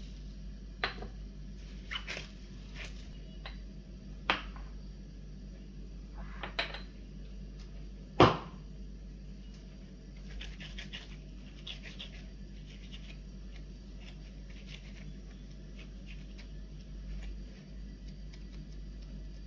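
Kitchen handling sounds: scattered light knocks and clicks of utensils and dishes, one sharper knock about eight seconds in, then soft scraping, over a low steady hum.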